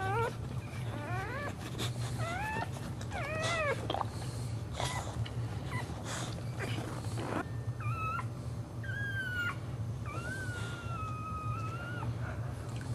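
High-pitched dog cries: a run of short whimpers that rise and fall in the first few seconds, then a few longer drawn-out whines, the last about two seconds long. A steady low hum runs underneath.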